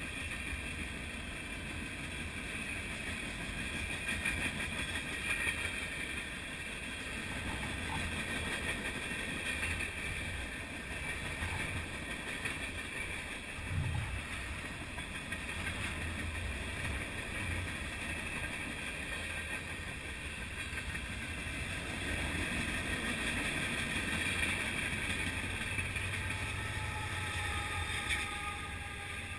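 Freight train rolling past close by: a steady rumble and clatter of steel wheels on rail with a high, steady squeal from the wheels. Near the end a mid-train diesel locomotive comes by and a falling tone is heard.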